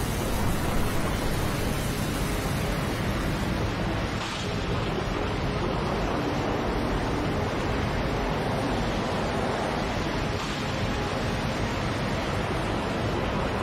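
Storm sound effect: a steady rushing noise of wind and heavy surf.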